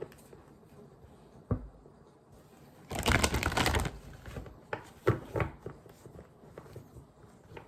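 A deck of tarot cards being shuffled and handled: a dense rustle lasting about a second, about three seconds in, with a few short taps and snaps of cards before and after it.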